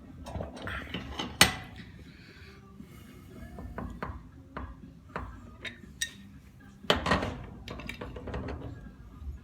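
Metal hand tools clinking and knocking against the parts of a pump being taken apart, with scattered taps and two louder metallic knocks, one about a second and a half in and one about seven seconds in.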